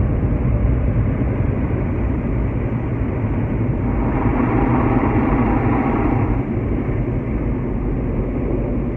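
Automatic car wash machinery heard from inside the car's cabin: a steady rushing noise over a low rumble, swelling louder for about two seconds in the middle.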